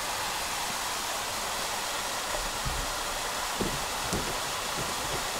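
Small forest waterfall pouring into a pool: a steady rush of falling water, with a few brief low bumps on the microphone in the second half.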